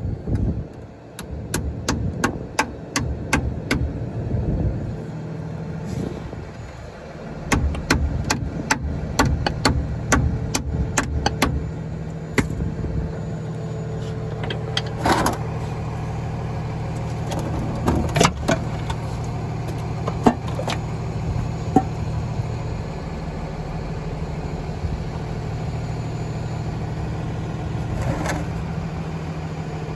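Hammer striking a screwdriver wedged into the seam of a truck's front differential cover, sharp metal-on-metal taps a few a second for about the first eleven seconds, to break the cover loose from the axle housing. After that come a few single taps and prying, over a steady engine idling in the background.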